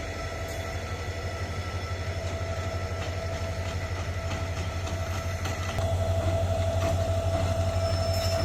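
A rail vehicle running with a steady low engine drone and a held whine, growing louder about six seconds in.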